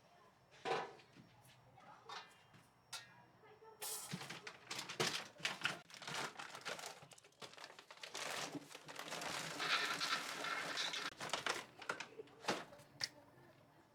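Rustling and crinkling, as of a bag being handled, with scattered light knocks and clatters; the rustling is densest for a few seconds past the middle.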